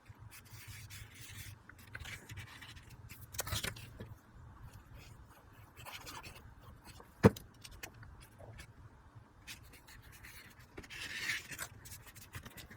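Paper and cardstock being handled, slid and rubbed while backing pieces are glued onto the card's panels, with light scrapes throughout and one sharp click about seven seconds in.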